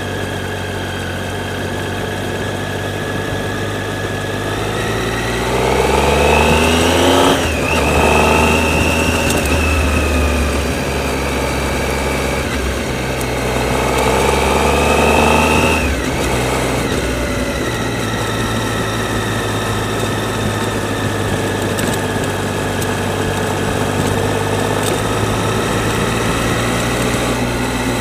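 A motorcycle engine heard from an onboard camera while riding. It climbs in pitch under acceleration and drops at a gear change about seven seconds in, climbs again and shifts at about sixteen seconds, then runs steadily at cruising speed.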